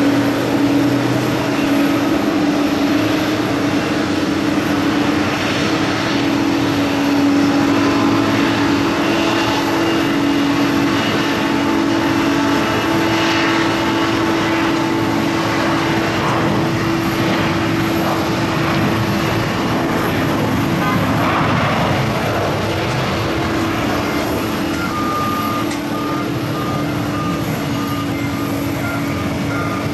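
Jet airliner engines running, a steady loud drone with a constant low hum over broad rushing noise. A short repeating tone joins in near the end.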